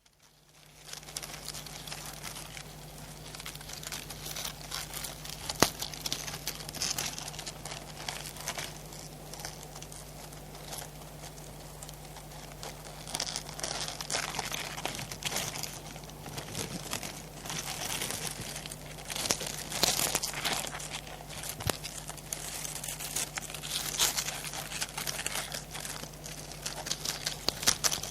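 Crab moving about: a continuous crackling, rustling scratch of its legs and shell with scattered sharp clicks, one louder click about five and a half seconds in.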